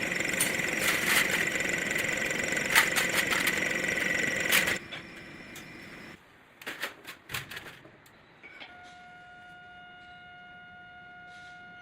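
Workshop machinery running loudly with a rattling, clicking noise for about five seconds, then stopping abruptly. A few separate clicks follow, and a steady electric hum starts about three seconds before the end.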